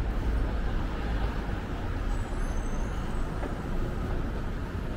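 City street traffic: a steady rumble of car engines and tyres passing.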